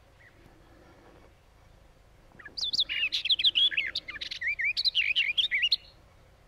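Barred warbler singing one fast warbling phrase of quickly changing high notes, about three seconds long, starting about two and a half seconds in.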